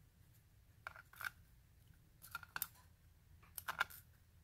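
Small, light clicks of metal tweezers picking at tiny lock pins on a pinning tray, in three short clusters about a second apart.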